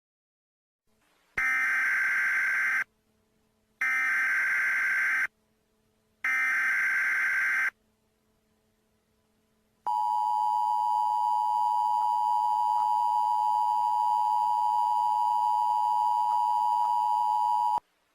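Emergency Alert System tones: three short buzzy bursts of SAME header data, each about a second and a half long and a second apart. Then comes the steady two-tone attention signal, held for about eight seconds. Together they are the signal that opens an emergency alert broadcast.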